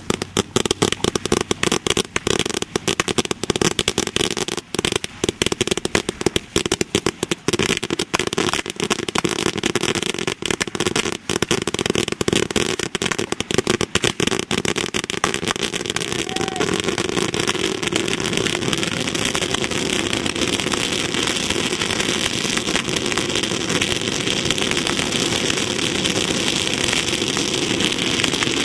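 A huge pile of firecracker rolls, tens of thousands of firecrackers, going off in a rapid, dense crackle of bangs. The bangs pile together and, from about halfway through, merge into one continuous crackle that grows slowly louder.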